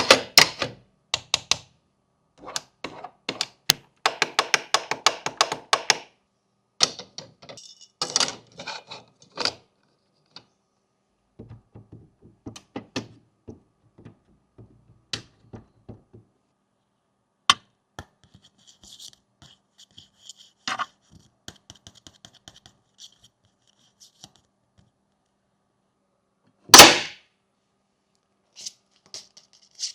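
Fidget toys being handled: a long run of small plastic clicks, taps and knocks, with quick rattling runs of clicks twice and one loud noisy burst near the end.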